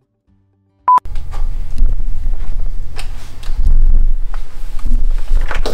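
A short electronic beep about a second in, then a steady low rumble with scattered knocks and clinks as a long steel rod is handled at a workbench.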